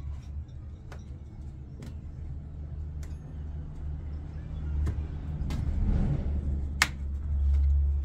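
Scattered clicks and light scraping as hands work the rubber door seal around the drum opening of an LG front-loading washing machine, with one sharp click near the end. A steady low rumble runs underneath.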